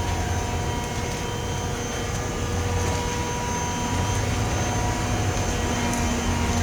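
A steady mechanical hum with several held tones, like a motor running without change.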